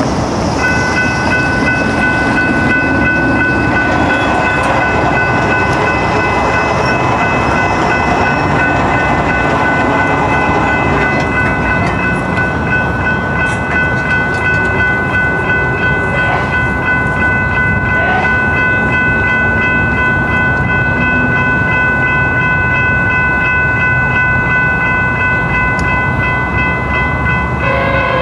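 Railroad crossing warning bells ringing steadily over a continuous background rumble as a Sounder commuter train approaches. Near the end the train's horn starts to sound.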